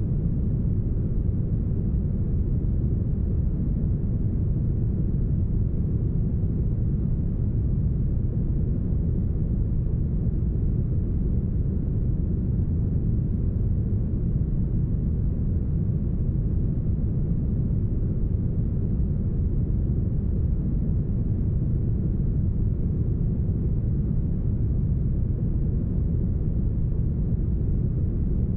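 Deep, smoothed brown noise: a steady low rumble of noise with the higher hiss filtered away, unchanging throughout.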